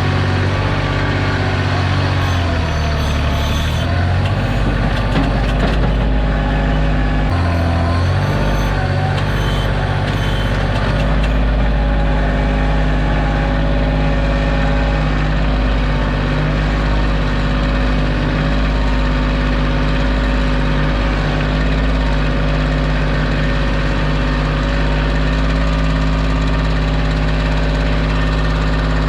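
Kioti compact tractor's diesel engine running while its backhoe digs. The engine note dips and shifts for about the first ten seconds, then holds steady.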